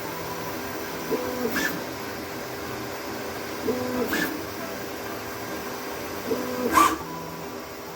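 3D printer auto bed-leveling with a CR Touch probe: three short probing cycles about two and a half seconds apart, each a brief stepper-motor whine with a click, over a steady hum.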